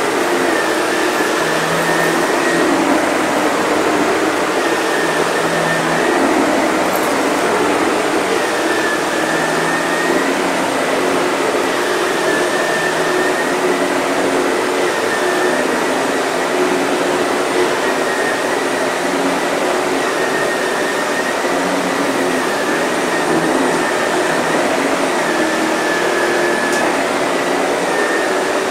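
Sebo Airbelt K1 canister vacuum running steadily while vacuuming a rug. Its motor whine dips slightly every two to three seconds.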